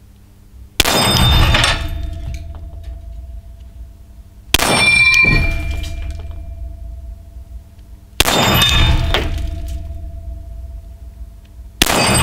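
Four 9×19 mm pistol shots from a Laugo Arms Alien, evenly spaced about three and a half seconds apart, each followed by a steel gong ringing on for a couple of seconds as it is hit.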